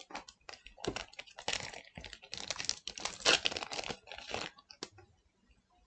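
Trading cards and their packaging being handled by hand: a quick run of clicks and crinkly rustles that stops about five seconds in.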